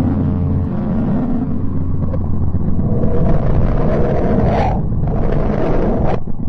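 Sonified space recording of the kind presented as a planet's sound: a loud, deep rumbling drone with low steady hum at first, then rising and falling rushing swells from about three seconds in, breaking off briefly near the end.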